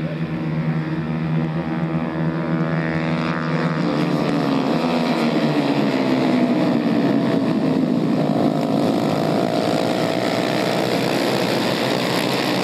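A pack of 110 cc racing motorcycles at high revs, several small single-cylinder engines buzzing together. Their pitch rises, falls and rises again as the bikes pass and change gear.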